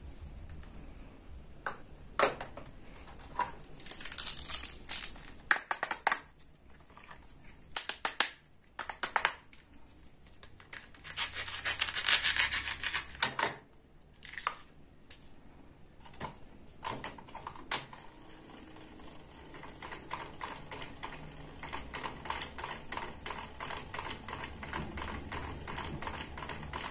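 Plastic toy kitchen pieces handled and clicked together, with scraping and rustling. About two-thirds of the way through, a toy hand mixer switches on with a click and runs with a high steady whine and fast, even ticking as its beaters knock against the plastic toy fruit in its bowl.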